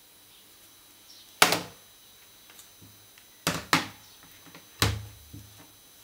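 Plastic tablet parts set down and knocked against a wooden tabletop: the white back cover of a Samsung Galaxy Tab 3 10.1 and the opened tablet frame. There are four short clunks, one early, two in quick succession around the middle, and one more a second later.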